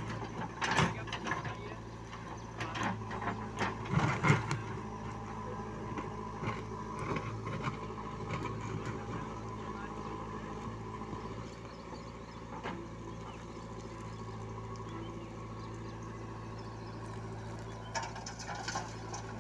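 JCB 3DX backhoe loader's diesel engine running steadily while its backhoe bucket digs and scrapes through stony soil, with clattering stones and bucket knocks during the first few seconds and again near the end as the loaded boom swings up.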